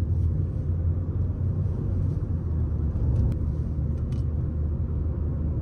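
A car travelling along a road, heard from inside: a steady low rumble of road and engine noise.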